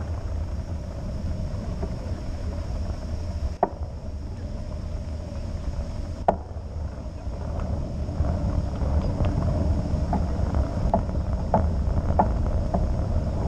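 Wind rushing over the microphone and mountain-bike tyres humming on asphalt on a fast downhill road run, getting a little louder about two-thirds of the way in. Two sharp knocks a few seconds apart come as the bike jolts over bumps, followed by lighter ticks near the end.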